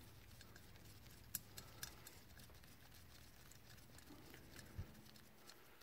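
Near silence with a few faint clicks of small metal carburetor parts being handled and fitted, two of them close together in the first two seconds, and a soft low thump near the end.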